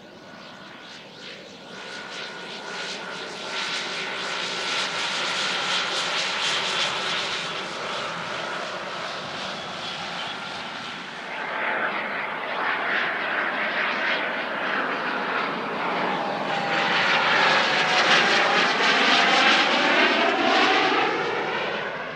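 Air Tractor AT-802AF Fire Boss single-engine turboprop running on the runway, a steady engine sound with a faint, slowly falling whine. About eleven seconds in, a twin-engine business jet on approach passes overhead, its whine falling in pitch as it grows louder towards the end.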